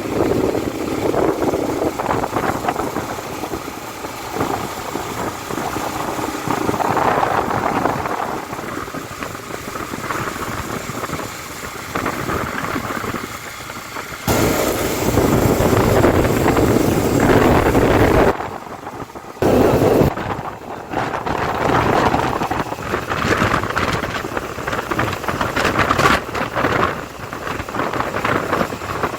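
Wind rushing and buffeting over the microphone of a moving motorcycle, with engine noise underneath. The noise jumps suddenly louder about halfway through and cuts out briefly twice soon after.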